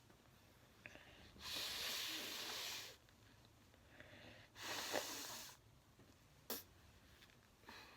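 A person blowing their nose into a tissue: two long, hissing blows, the first about a second and a half, the second about a second, followed by a single short, sharp sniff.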